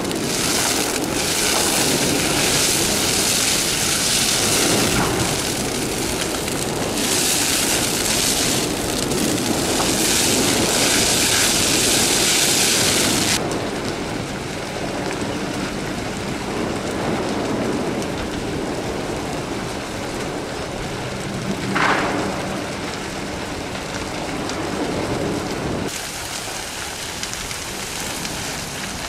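A building burning fiercely, its flames giving a dense, steady crackle and rush. About three-quarters of the way through, a brief hiss falls in pitch and stands out as the loudest sound.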